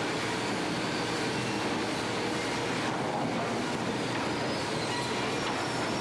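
Steady din of sawmill machinery running, with faint high steady whines over it.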